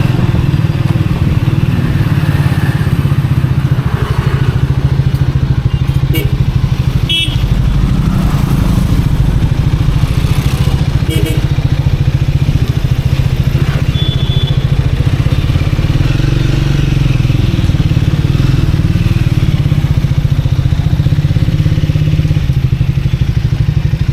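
Triumph Speed 400's single-cylinder engine running at steady, moderate revs while riding, its exhaust pulsing evenly. A few short high tones sound over it about 7 and 11 seconds in.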